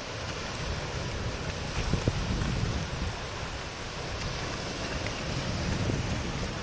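Sea water washing and lapping against shoreline rocks, a steady rushing wash, with wind buffeting the microphone as a low rumble. A brief knock sounds about two seconds in.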